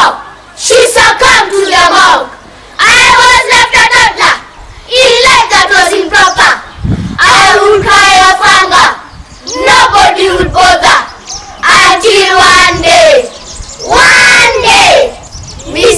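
A group of children chanting in unison, loud short phrases about every two seconds with brief pauses between them.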